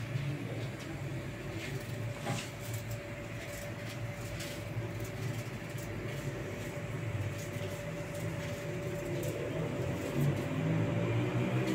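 Small kitchen knives peeling and trimming onions, scattered light clicks, over a steady room hum with a faint steady tone.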